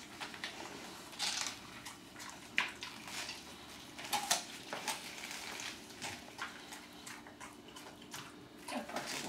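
A dog biting and gnawing at a whole head of cabbage: irregular wet crunches and crackles of the leaves, with the sharpest snaps about two and a half and four seconds in.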